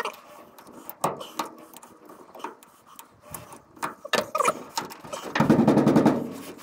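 Clicks and knocks of a hand tool and door parts being handled, then about a second of loud squeaking and rubbing near the end as a rubber door seal is pressed into a truck door's frame.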